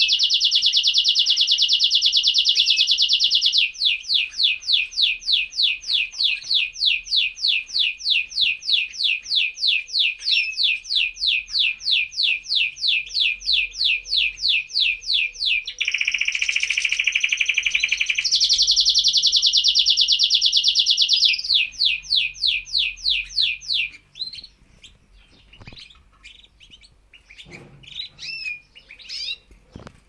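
Domestic canary singing a long song of rapid trills: a fast buzzing roll, then a run of repeated notes at about four a second, a lower rolling trill about sixteen seconds in, and another fast roll. About twenty-four seconds in the song stops, and only quieter scattered chirps follow.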